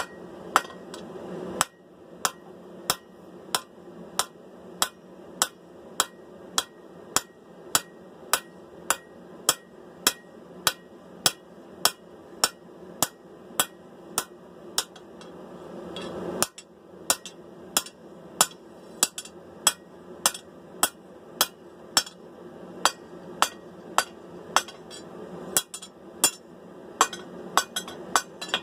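Hand hammer striking a guillotine tool on hot steel at the anvil, a steady rhythm of sharp ringing blows about one and a half per second, with a short break about two-thirds of the way through. The blows set the shoulders where the sword's tang begins.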